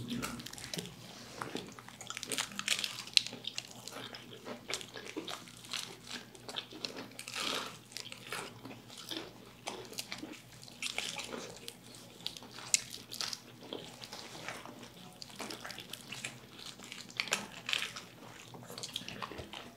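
Two people biting and chewing crispy fried chicken close to the microphone: irregular crunches and mouth sounds, over a faint low hum.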